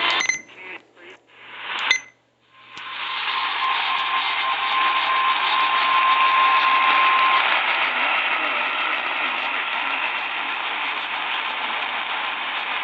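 Radio receiver static: a few short crackles, then about three seconds in a steady, loud hiss of AM band noise with a steady whistle tone through the middle of it for about four seconds.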